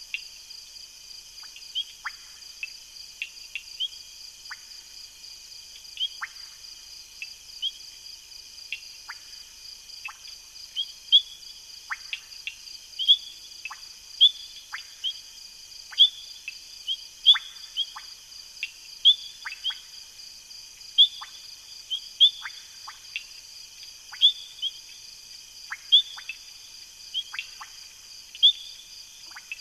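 Night chorus of frogs and insects: a steady high insect trill underneath, with short, sharp calls that drop in pitch, repeated roughly once or twice a second.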